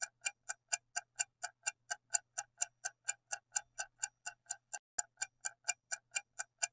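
Clock-like ticking sound effect, steady at about four ticks a second: a quiz countdown timer running while the answer is awaited.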